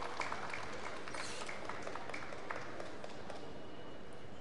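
Crowd applauding, the clapping thinning out and fading away about two seconds in.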